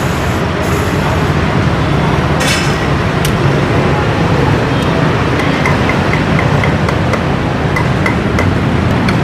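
Steady roadside traffic noise, with a few light clicks and a brief high-pitched sound about two and a half seconds in.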